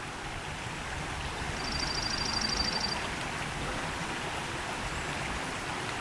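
Steady outdoor hiss of open-air ambience, with a small songbird's high, rapid, even trill a little over a second long starting about one and a half seconds in.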